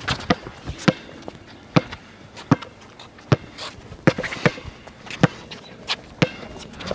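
A basketball dribbled on a hard court: sharp bounces a little under a second apart, with one quicker pair near the middle.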